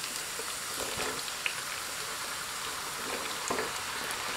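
Hot gingelly (sesame) oil sizzling steadily in a pan as chopped citron pieces are tipped in from a board, with a few soft knocks of pieces and spatula.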